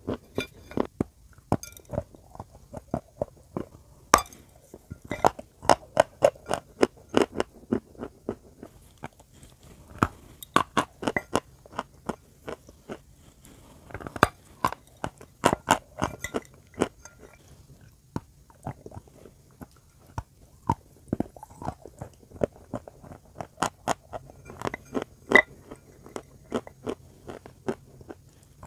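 Close-miked biting and chewing of chalk pieces coated in clay paste: runs of sharp, brittle crunches with quieter stretches of chewing between them.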